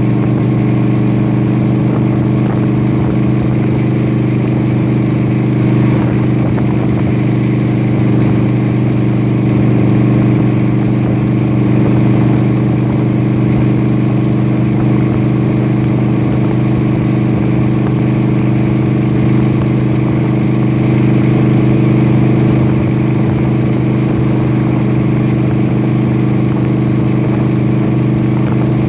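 A vehicle driving at a steady cruising speed: an even engine hum that holds one pitch, over road noise.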